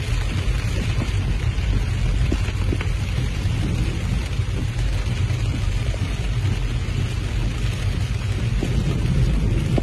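Heavy rain beating on a moving car, heard from inside, over the steady low rumble of the car driving through water on a flooded street. Scattered sharp taps of drops break through the rain's hiss.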